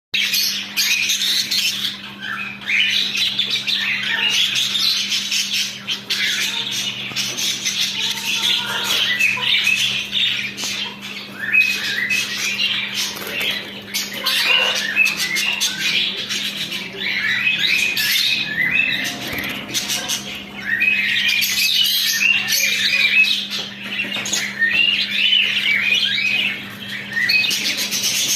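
Budgerigars, English show budgies, chattering with many quick overlapping chirps, over a steady low hum.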